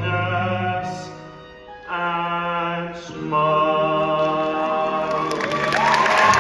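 Stage musical cast singing long held chords in ensemble over accompaniment, the chord changing twice. About five seconds in, audience applause and cheering break in over the last held chord.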